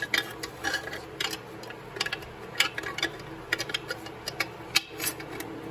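Steel clutch plate clicking and scraping against metal as it is turned by hand inside an aluminum Powerglide transmission case, hunting for the notch where it drops in; the clicks come irregularly, several a second, over a steady low hum.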